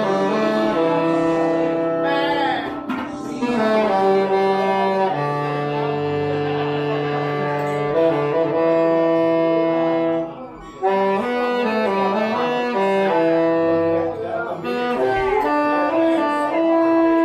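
Saxophone played live, a slow melody of long held notes, with a short break for breath about ten seconds in.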